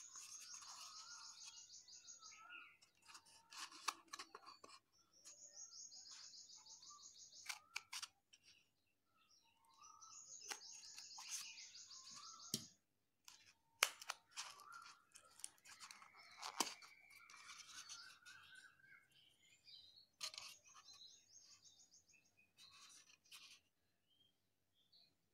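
Thermocol foam cup being cut and handled with scissors: scattered sharp clicks and snips, with several stretches of high, fast-pulsing chirping about two seconds long.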